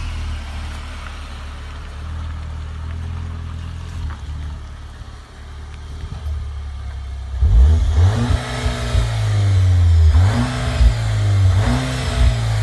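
Cupra Formentor's engine running steadily at low pitch, then about seven seconds in the car accelerates hard: the engine note rises in repeated sweeps, each dropping back as it shifts up through the gears, growing louder toward the end.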